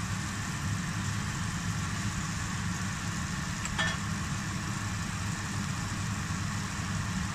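Steady low mechanical hum with a faint even hiss, and a single brief click about four seconds in.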